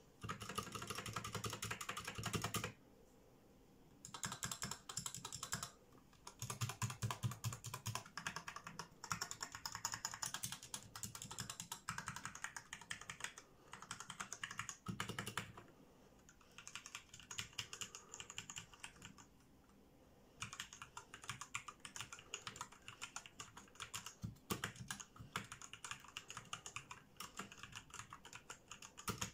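Fast typing on a 60% mechanical keyboard with Cherry MX Red switches, in runs of several seconds broken by short pauses. It has no dampening mat, and the owner notes a slight ping when the keys are pressed.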